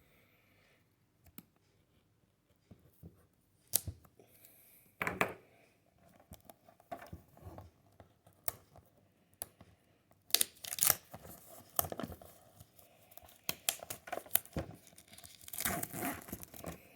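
Plastic packaging on a new phone box being torn open and crinkled by hand: scattered clicks and rustles, sparse at first and getting busier and louder through the second half.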